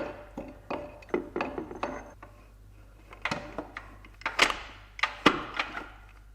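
Irregular metallic clinks and knocks of the B-clutch drum being lowered into the ZF 6HP26 automatic transmission case and worked down to engage the clutch friction plates, with the knocks coming more often after about three seconds.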